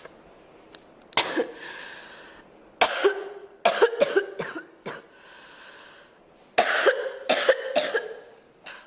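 A girl coughing in fits: a single cough about a second in, then repeated runs of quick coughs through the middle and again near the end, with breaths drawn in between.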